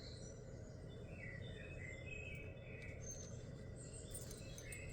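Faint bird chirps, many short high notes in quick succession, over a low steady background hum.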